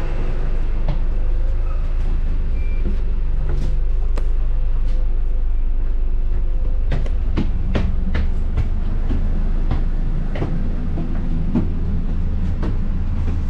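Ride noise inside a moving MCV EvoSeti bus: a steady low rumble from the drivetrain and road, with frequent sharp rattles and knocks from the body and fittings, coming more often from about seven seconds in.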